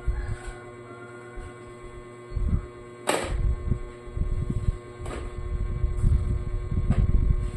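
Steady electrical hum over a low rumble, with a few light knocks as produce is set into a ceramic dish; the sharpest knock comes about three seconds in.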